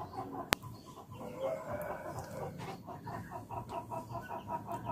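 Chickens calling, with a quick run of evenly repeated notes, about six a second, through the second half. A single sharp click about half a second in.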